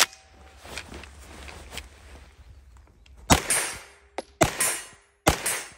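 A sharp click, then three single semi-automatic shots from a CZ Scorpion Evo 3 A1 9mm carbine, about a second apart, each ringing out briefly.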